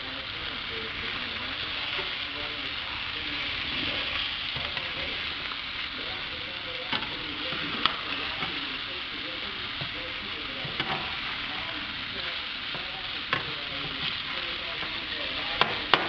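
Yellowtail snapper fillets sizzling steadily in butter in a nonstick frying pan. A few sharp clicks of a slotted wooden spatula against the pan come as the fillets are flipped, the loudest a little before the middle and near the end.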